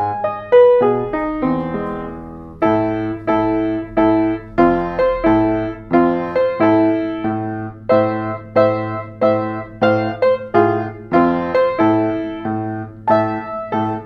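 Baldwin upright piano played solo, chords and melody notes struck in a steady rhythm. About two seconds in the notes are left to fade briefly before the struck chords resume.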